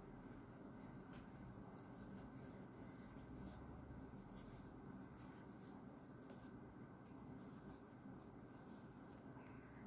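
Near silence with faint, irregular scratching and light ticks of a crochet hook pulling yarn through a popcorn stitch, over a low steady room hum.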